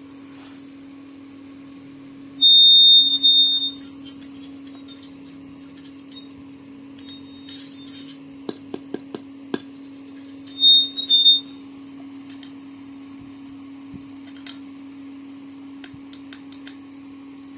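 Wireless lavalier microphone set playing through a speaker: a steady low hum, broken twice by a loud high-pitched tone, first for about a second a few seconds in and again briefly around eleven seconds. A few sharp clicks come in quick succession around eight to nine seconds.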